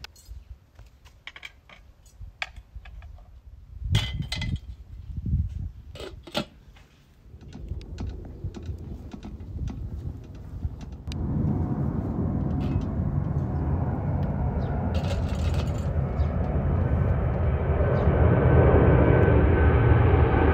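Scattered metal clinks and knocks around a steel pot on a charcoal grill. About halfway through, the steady rush of a low-flying four-engine jet airliner passing overhead comes in and grows louder toward the end.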